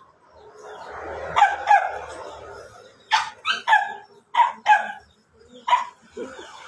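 A dog barking repeatedly: about eight short barks in quick groups of two or three.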